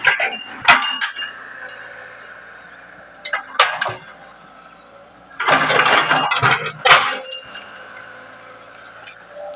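Hitachi 110 excavator running steadily, with sharp metal clanks and knocks about a second in and nearly four seconds in, and a longer cluster of heavy clanking in the middle.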